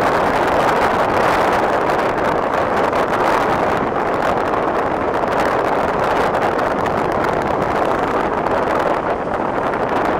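Steady wind rushing over the microphone, an even noise with no pitch or rhythm that holds at one level throughout.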